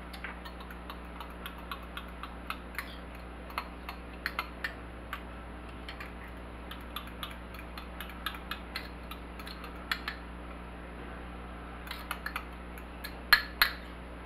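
A metal fork stirring sauce in a small glass bowl: many light clinks and taps against the glass, with a few louder clinks near the end.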